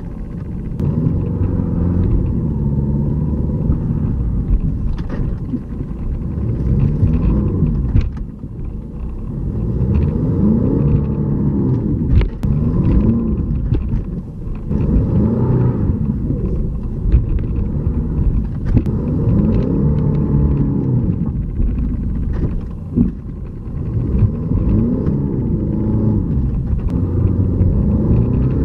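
Jeep Liberty CRD's 2.8-litre four-cylinder turbodiesel revving up and dropping back again and again, a rise and fall every three to five seconds, with a few sharp knocks. The vehicle is stuck in frozen snow and is being rocked in four-wheel-drive low to get free.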